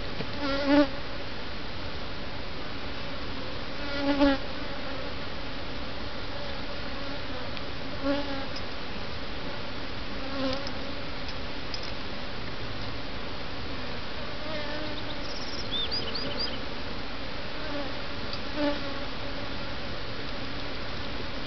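Honeybees buzzing around an opened hive as frames are moved in from a nuc: a steady hum, with a single bee swelling loudly as it flies close past every few seconds.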